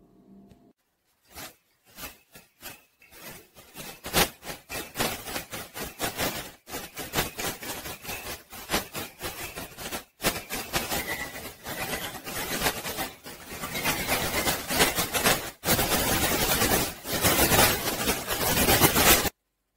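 Sandpaper rubbed quickly back and forth along a thin wooden kite stick, sanding it smooth. A few separate strokes at first, then a steady run of fast scratchy strokes that grows louder in the last few seconds and cuts off suddenly near the end.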